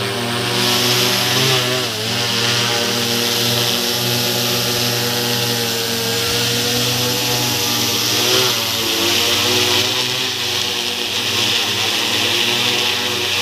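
Multirotor agricultural spray drone's motors and propellers droning steadily as it hovers and comes down to land. The pitch wavers briefly twice, about two seconds in and again past the middle, as the rotors change speed.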